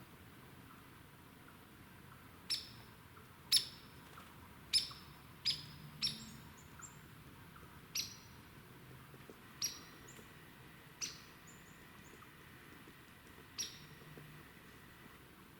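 A small bird giving sharp, high chip calls, about nine of them at irregular intervals, each one short and dropping quickly in pitch.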